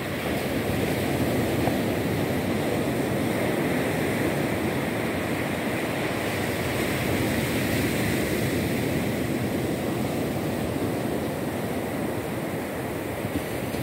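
Small sea waves breaking and washing up onto a flat sandy beach: a steady, even rush of surf.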